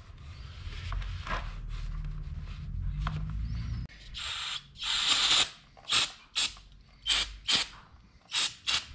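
Aerosol spray can hissing onto a plastic scooter oil tank to clean it before repair: two longer blasts about four seconds in, then a string of short spurts. Before the spraying there is low handling noise of the tank being turned over.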